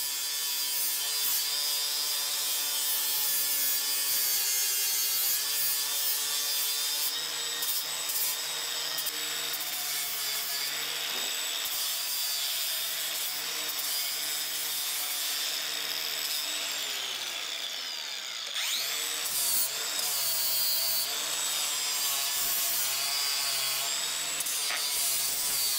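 Metabo cordless angle grinder with a flap disc grinding the steel edge of an anvil, smoothing and rounding off chips: a steady motor whine over the hiss of abrasive on steel. About 17 seconds in, the pitch sags and the sound dips, then climbs back a couple of seconds later and runs on.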